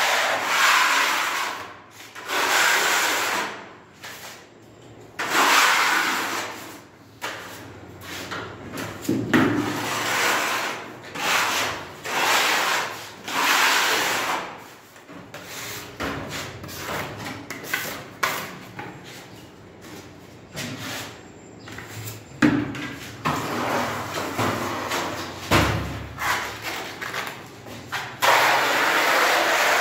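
A wide putty knife scraping wall putty across a plastered wall: a dozen or so rasping strokes, each a second or two long, with short pauses between passes.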